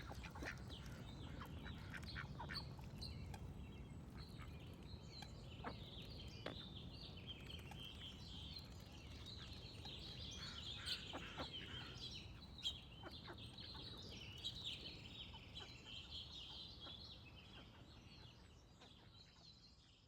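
Songbirds chirping and singing, with occasional duck quacks, over a low steady rumble; it all fades out over the last few seconds.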